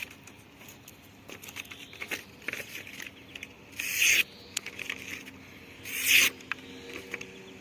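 Folding knife blade making cutting strokes: two short scraping swishes about four and six seconds in, with small clicks and handling noises between them.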